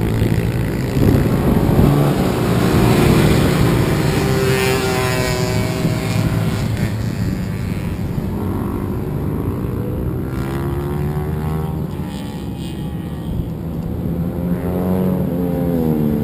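Racing motorcycle engines lapping a track, their pitch rising and falling as the bikes accelerate, shift and slow, with more than one bike heard at once at times.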